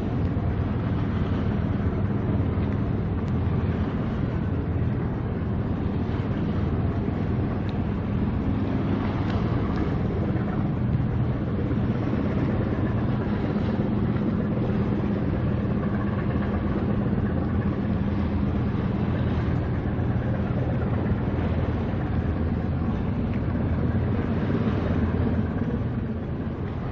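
Steady low engine drone of a passing ship, with a constant rumble. It stays even throughout, easing slightly near the end.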